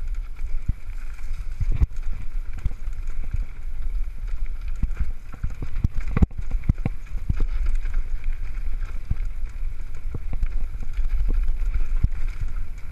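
Wind buffeting an action camera's microphone while a mountain bike rattles and knocks over a rough dirt singletrack descent, with irregular jolts, a sharp one about six seconds in.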